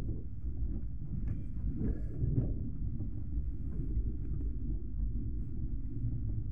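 Steady low rumble of a moving passenger train heard from inside the coach at an open window, with some wind on the microphone.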